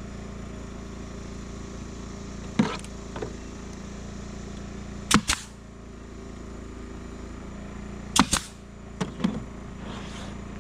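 Nail gun firing nails into the corners of a 2x4 drawer box: one sharp shot about two and a half seconds in, then two quick pairs of shots around five and eight seconds, and a couple of softer knocks near the end.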